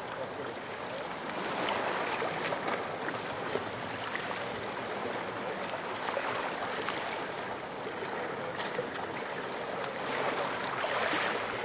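Small sea waves washing and lapping on a pebble shore, a steady wash of water, with now and then a faint click.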